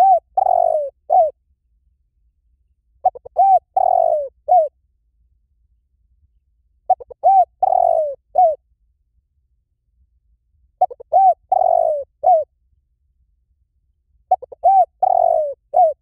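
Spotted dove calling. It gives the same cooing phrase five times, about every four seconds: a few quick short notes, a longer drawn-out coo, then one short closing coo.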